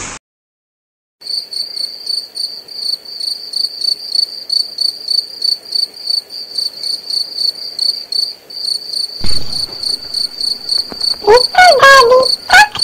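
Sound effects of an animated intro: a high-pitched chirp pulsing about four times a second. Near the end, squeaky cartoon tones slide up and down in pitch.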